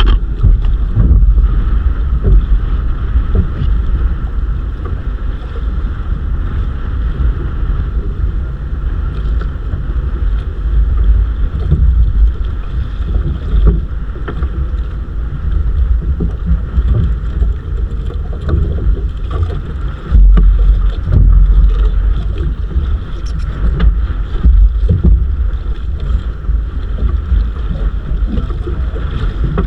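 Wind buffeting the microphone aboard a bangka, a small outrigger fishing boat at sea, with heavy gusts about two-thirds of the way in, over a steady drone.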